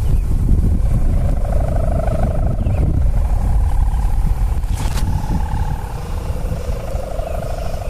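Bamboo kite hummer (sendaren) with a gift-ribbon reed buzzing in the wind: a rough, fluttering 'snoring' drone that swells and fades and shifts in pitch, over heavy wind rumble on the microphone. A sharp click about five seconds in.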